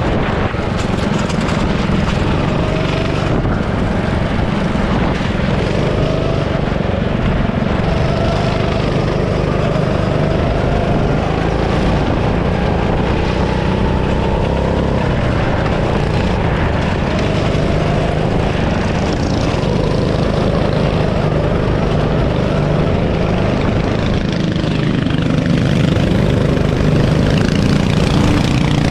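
Go-kart engine running hard at speed, heard from on board, its pitch slowly rising and falling as the kart accelerates and slows through the track's corners, over a constant rush of noise.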